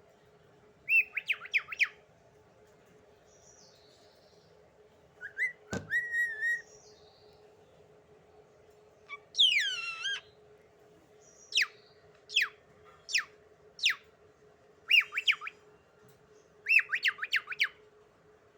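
Pet bird calling in short bursts: clusters of quick chirps, a longer whistle, and several single falling whistles, with a sharp click about a third of the way in. A faint steady hum runs underneath.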